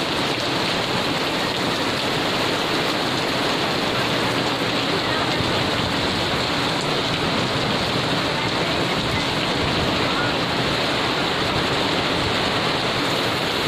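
Heavy rain pouring down onto paving stones and wet ground, a steady, even hiss with no breaks.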